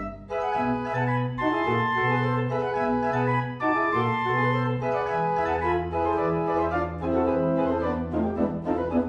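Pipe organ playing: held chords in the manuals over a moving bass line, with a long low pedal note that enters about five seconds in, and quicker, shorter notes near the end.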